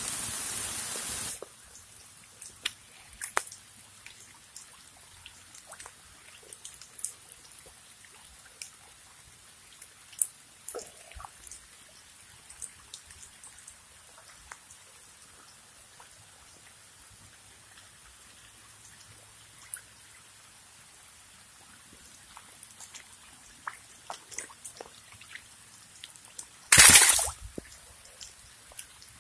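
Light rain falling on a shallow stream and wet leaves: scattered raindrops ticking and dripping over a quiet background. A second or so of loud rushing noise opens it, and a short loud rush of noise comes near the end.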